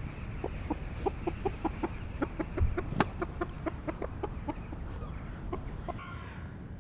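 A chicken clucking in a quick run of short notes, about four or five a second, that fades out near the end. A sharp click comes about three seconds in.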